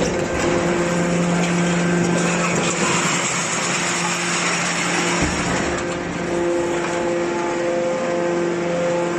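Hydraulic can baler running: a steady motor-and-pump hum with a rushing noise that swells in the middle and eases off again.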